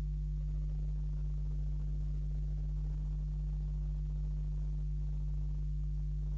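Steady low electrical hum, a deep buzz with fainter higher hum tones above it, unchanging throughout.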